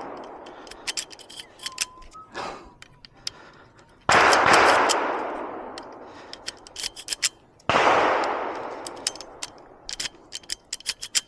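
Two rifle shots about three and a half seconds apart from a Henry Big Boy X lever-action rifle firing .38 Special, each followed by a long echoing decay. Sharp clicks and clacks of the action being handled fall between and after the shots.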